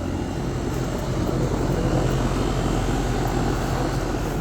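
A steady mechanical drone with a low hum, like a motor or engine running.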